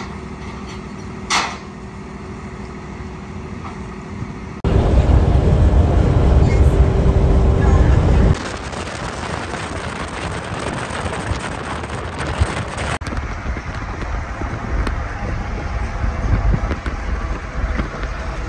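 Vehicle sounds across several abrupt cuts: a vehicle running with road noise, and a much louder, low-pitched stretch from about five to eight seconds in.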